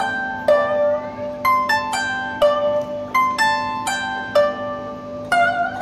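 Background music: a melody of plucked string notes, about two a second, over a steady low drone.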